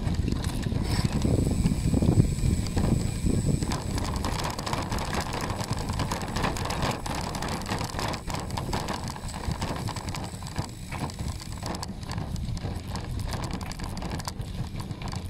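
Bicycle ridden over a rough gravel and dirt path: tyres rolling on the stones and the bike rattling and knocking over bumps, over a steady low wind rumble on the microphone. It is a little louder in the first few seconds.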